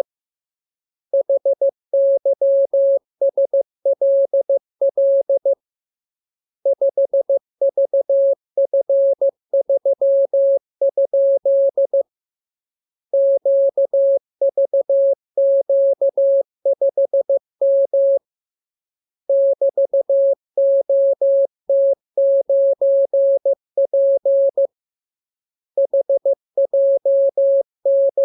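Morse code (CW) practice transmission: a single steady beeping tone keyed rapidly into dots and dashes, sent in runs of characters separated by pauses of about a second.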